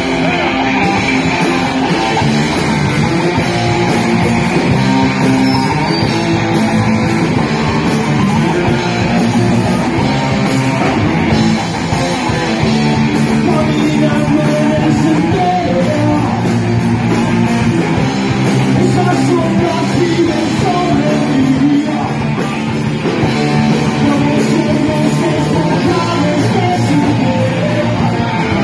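Rock music with guitar and singing, playing steadily.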